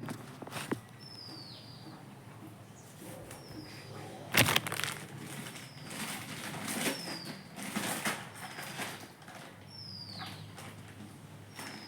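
A bird chirping over and over, short high notes that sweep downward, about one every second or so. Faint handling rustles sound around them, with one short, loud crackle about four and a half seconds in.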